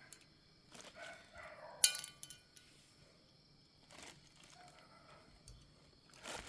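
Faint taps and clicks of metal parts and tools being handled while valve seals are fitted onto a cylinder head, with one sharp, ringing metallic clink about two seconds in.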